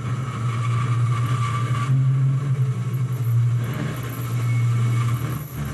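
A 2.2 kW spindle turning at 7,500 rpm drives a 6 mm four-flute TiAlN-coated carbide end mill, climb milling mild steel on a flexible DIY CNC router. The cut sounds as a steady hum with a ringing tone above it, and a domestic vacuum cleaner runs at the cutter to suck up chips.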